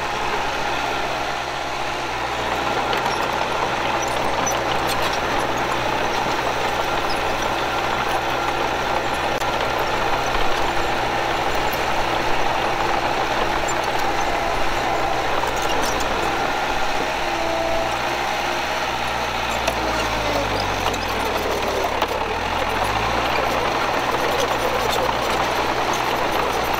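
Diesel engine of heavy earthmoving machinery running steadily. About 21 seconds in, its pitch drops, then climbs back a second or two later.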